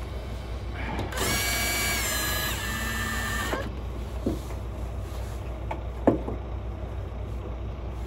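Cordless drill-driver running for about two and a half seconds, driving a screw into the van door's metal to hold a lock case temporarily; its whine steps down in pitch partway through as the screw bites. A few light clicks follow.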